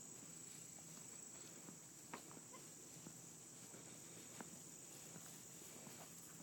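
Faint, steady high-pitched insect chorus, with a few faint clicks about two and four seconds in.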